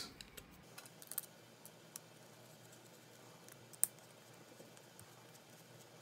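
A few faint, scattered clicks of a hex key working a small bolt as the connector bulkhead's mounting bolts are snugged down. One sharper click comes a little past the middle.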